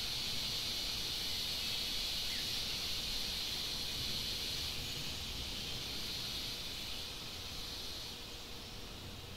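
Steady, high-pitched insect chorus over outdoor background noise, easing off slightly near the end.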